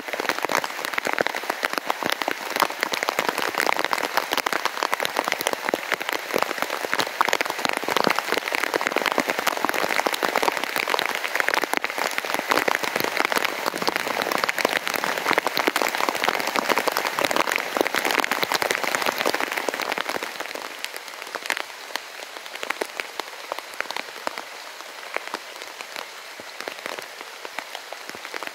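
Steady rain, a dense rush of many small drop hits, easing to a lighter fall from about twenty seconds in.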